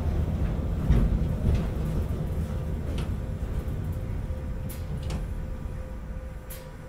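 Running sound inside Sapporo streetcar M100-type car M101: a low rumble of wheels on rail with a faint steady hum, growing gradually quieter, broken by a few sharp clicks.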